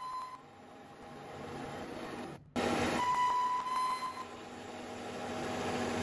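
Metal lathe running, a carbide insert tool turning a spinning metal bar and peeling off long stringy chips, with a steady whine from the machine. About two and a half seconds in the sound cuts out for an instant and comes back louder.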